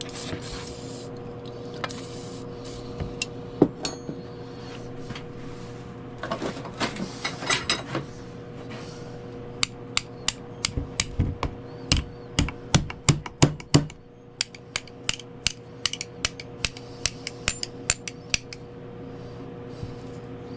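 Hammer blows on the seized, frozen metal of a vintage Craftsman basin wrench to knock it loose. Sharp metal strikes come scattered at first, then as a quick, even run of taps in the second half, over a steady low hum.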